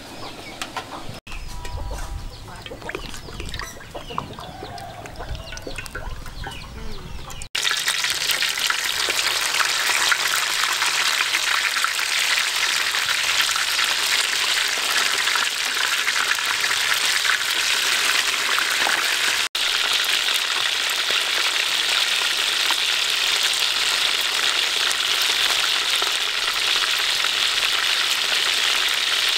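Chickens clucking in the background for the first several seconds. Then, from about a quarter of the way in, a dense, steady sizzle of pieces of food deep-frying in a wok of hot oil.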